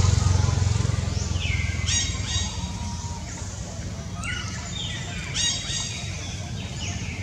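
High-pitched animal calls repeated several times, each a falling cry followed by a brief ringing note. Under them, a low rumble fades away over the first two seconds.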